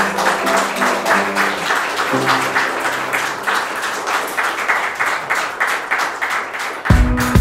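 A crowd of guests applauding, dense steady clapping over background music. Near the end a different music track with a heavy bass beat cuts in.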